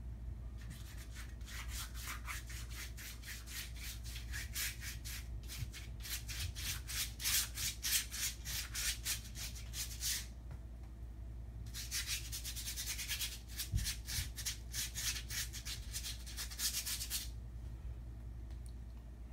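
Quick back-and-forth rubbing strokes of colour being scrubbed onto a large sheet of paper, a few strokes a second. They come in two long runs with a pause of about a second and a half between.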